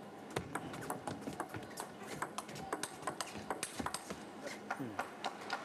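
Table tennis rally: the celluloid ball clicking sharply off the players' paddles and the table, several clicks a second in an uneven rhythm.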